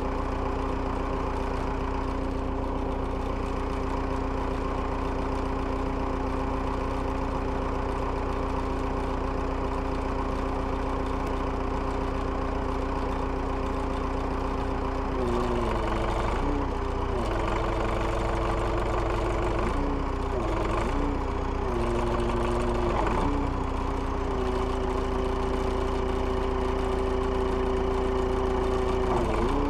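Perkins 4.236 four-cylinder diesel of a JCB 1400B backhoe running after a cold start. It idles steadily, then from about halfway its speed rises and dips again and again.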